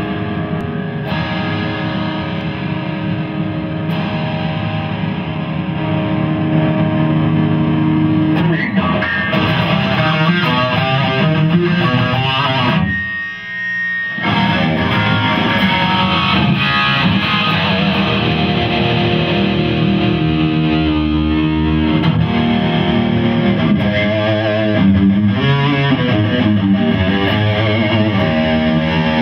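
Distorted electric guitar, a Les Paul played through an ENGL Savage 120 tube amp head and ENGL cabinet: sustained chords and lead lines with bends and vibrato. The playing drops out briefly a little under halfway through, then picks up again.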